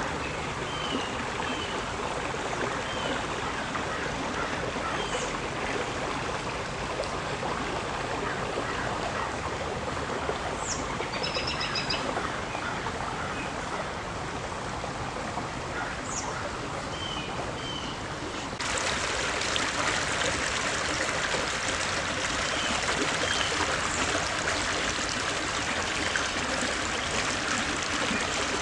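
Small rocky creek trickling and flowing steadily over stones, with a few short bird chirps. The water grows louder and brighter about two-thirds of the way through.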